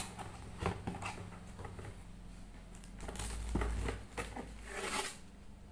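Plastic wrapping rustling and a cardboard box being handled as plastic fan blades are pulled out, with scattered light taps and knocks.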